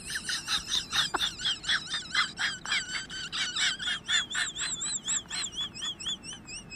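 Rapid, high-pitched chirping chatter, about six chirps a second, wavering in pitch and easing into a warbling trill near the end, played from the TikTok's soundtrack as a comic stand-in for a girlfriend's nonstop talking.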